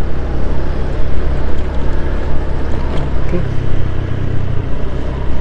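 Motor scooter engine running steadily while being ridden, with road and wind noise on a helmet-mounted microphone.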